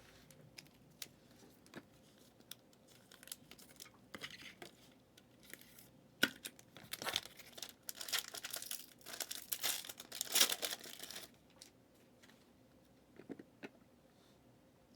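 Trading-card pack wrapper being torn open and crinkled by hand: scattered light ticks, then a few seconds of busy tearing and crackling, with a last bit of rustle near the end.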